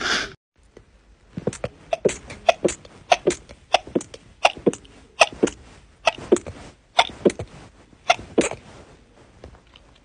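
A woman sneezing in a rapid series of short sneezes, about twenty in seven seconds, roughly three a second. Just before them, the tail end of another person's single sneeze.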